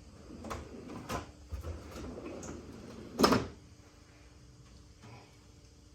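Steel tool chest drawer being worked on its slides: a few light clicks, then one louder clunk about three seconds in.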